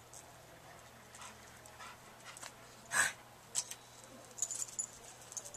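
A small three-legged spaniel's claws clicking on tile steps as it shifts about, a few scattered clicks with one sharper one about three seconds in and a quicker run of light clicks near the end.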